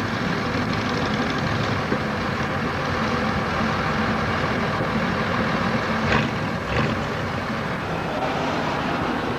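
Car engine running steadily at low revs, with two short clicks about six seconds in.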